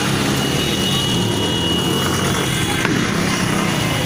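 Many motorcycle engines running together as a large convoy of motorbikes rides past. A steady high-pitched tone sounds through the first half.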